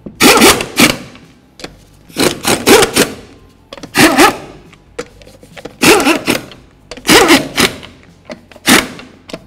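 Pneumatic impact wrench (air gun) with a socket, fired in about six short bursts as it runs lug nuts down one after another until they bottom out against the wheel.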